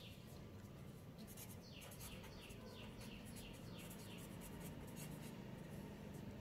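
Faint scratching of a pen writing on paper: a quick series of short strokes that stops about five and a half seconds in.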